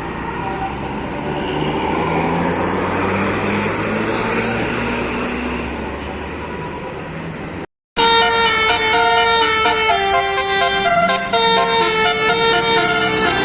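A bus going by with its engine running, then, after a sudden cut, a loud telolet basuri: a multi-tone musical bus horn playing a tune in steps of changing notes.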